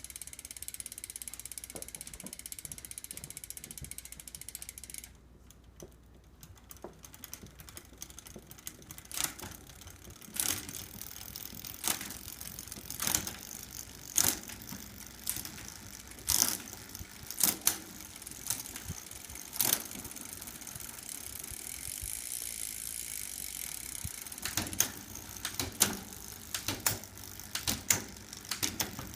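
Bicycle drivetrain worked by hand: a freewheel ratchet buzzing steadily for about five seconds, then a long run of sharp, irregular mechanical clicks.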